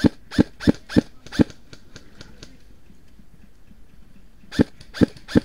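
Airsoft rifle firing single shots. There are five quick sharp shots about a third of a second apart, then a pause of about three seconds, then three more near the end.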